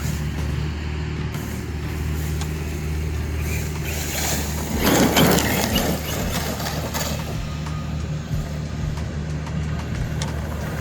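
Traxxas Sledge electric RC monster truck being driven, with a loud rush of motor and tyre noise lasting about two seconds around the middle, over a steady low hum.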